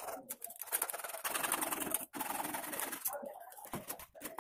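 Hand-held hacksaw blade sawing through CPVC plastic pipe with fast, short back-and-forth strokes, breaking off briefly about two seconds in before carrying on.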